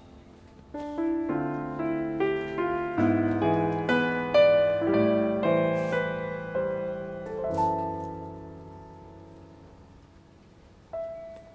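Background piano music: a slow, sad run of notes and chords that starts about a second in, swells, then dies away, with one more note near the end.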